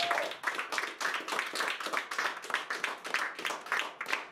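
A small audience clapping at the end of a rock song, the clapping thinning out near the end. The band's last held note stops at the very start.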